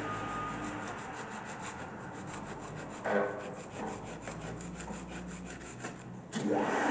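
Doall (Anayak-built) horizontal milling machine winding down after being switched off, with an even ticking of about six a second as the spindle drive slows and a clunk about three seconds in. Near the end the motor is started again and spins up with a rising whine.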